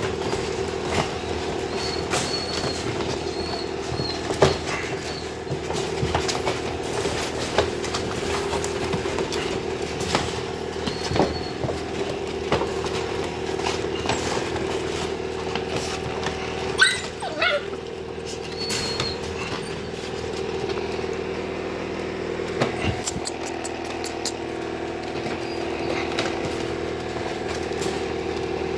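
Seven-week-old husky puppies making a few short, high squeaks and whines, with one longer yelp that slides down in pitch about two-thirds of the way in. Frequent clicks and knocks of handling and scrabbling run over a steady low hum.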